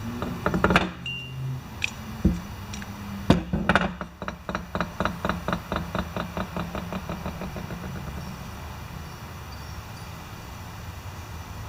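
Metal knocks and clinks of hand work on the open small engine, then a run of light clicks, about four a second, that dies away over several seconds.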